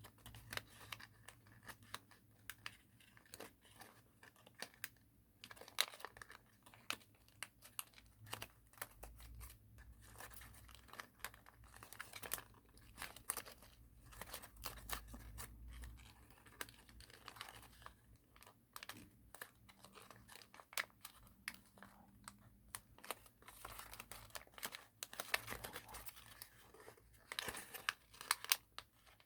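Thin origami paper being creased and spread open by hand: soft, irregular rustling and crinkling with scattered sharp crackles of the paper.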